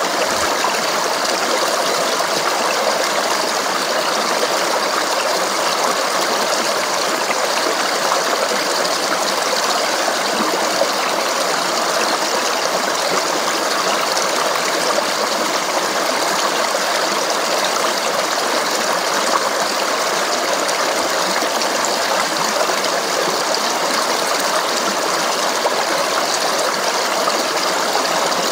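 Flowing stream water babbling in a steady, unbroken rush.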